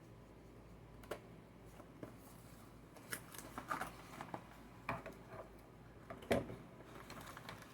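Faint clicks, taps and light rustling of a replacement phone screen and its packaging being handled, the loudest tap about six seconds in.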